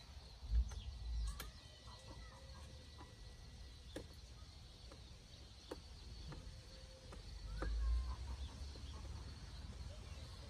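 Birds calling in short chirps, with wind gusting on the microphone as a low rumble twice, just after the start and again about eight seconds in, and a few light clicks.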